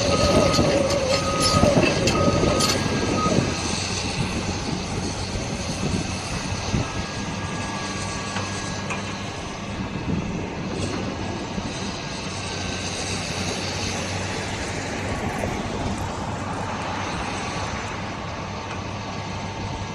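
Caterpillar tracked excavator's diesel engine running steadily as it swings its boom and lowers its bucket. A motion alarm beeps about one and a half times a second for the first three seconds or so, then stops.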